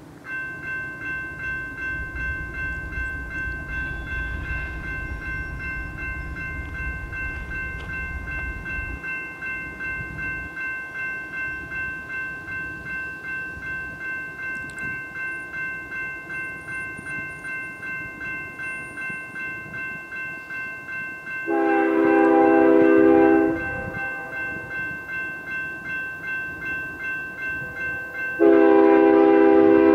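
Grade-crossing signal bell ringing in a steady, even pulse, about one and a half strokes a second. The horn of an approaching BNSF GE ES44DC locomotive sounds a long blast about two-thirds of the way through and a second loud blast near the end, which is its grade-crossing warning.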